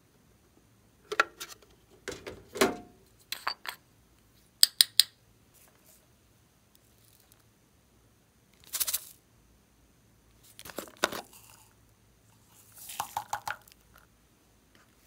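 Slime being pressed and squeezed by hand, in about seven short bursts of sticky clicks and crackling pops with pauses between. Around five seconds in come three sharp clicks close together.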